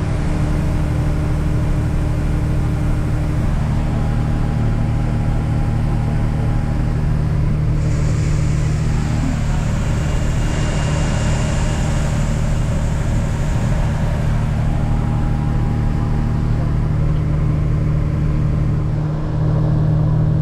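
Case IH 8940 tractor's diesel engine running steadily, with the engine note lifting slightly near the end.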